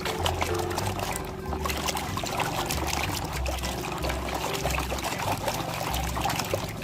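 Water trickling and splashing as muddy toy vehicles are rinsed in a tub of water.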